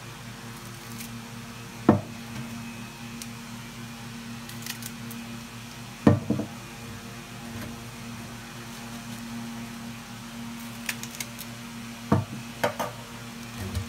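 A few sharp knocks and clinks of a knife and lettuce against a wire strainer and stainless steel sink as lettuce is cut over it: one about two seconds in, two close together near the middle, and several near the end. A steady low hum runs underneath.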